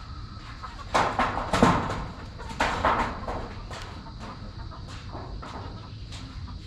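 A rooster crowing, the loudest calls coming about one second in and again near three seconds.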